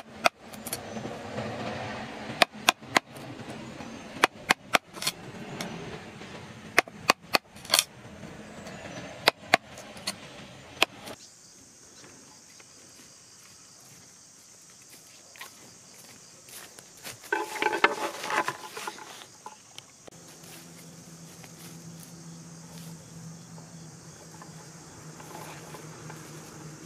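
Repeated sharp, irregular strikes of a tool on wood for about the first eleven seconds, then a steady high insect buzz in the background, with a brief rustling burst around the middle.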